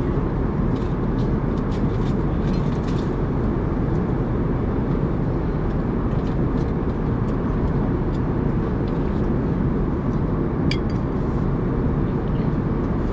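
Steady rushing cabin noise of an airliner, unchanging throughout, with a few faint clicks.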